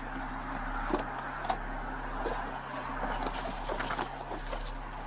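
Steady vehicle and street noise picked up by an Axon Body 3 body-worn camera, with rustling and a few sharp clicks about a second in as the officer climbs into his patrol car.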